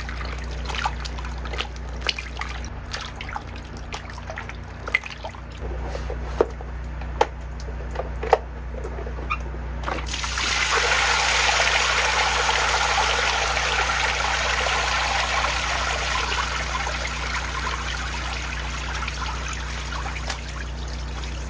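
Hands swishing apples in a plastic tote bin full of water, with splashes and knocks. About halfway through, the lidded bin is tipped and water pours out of it in a steady stream onto concrete as the apples are drained.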